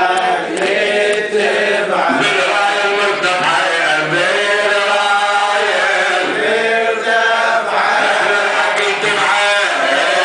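A man chanting a religious recitation into a microphone, in long, held, melodic sung phrases.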